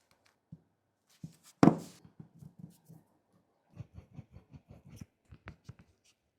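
A sharp knock about one and a half seconds in, then a run of light taps and clicks, several a second, from a smartphone and small repair tools being handled.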